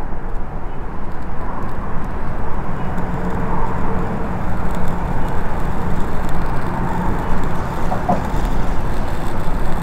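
A lighter being worked by thumb in cupped hands, with small clicks as it is struck, over a steady low outdoor rumble.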